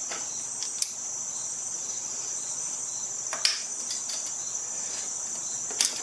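Steady high-pitched insect trill, with three sharp clicks of tools and metal parts being handled as a scooter carburetor is worked loose, about a second in, halfway through and near the end.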